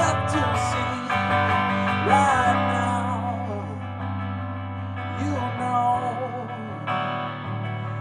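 A man singing live to his own hollow-body electric guitar, strummed chords under a wavering vocal line.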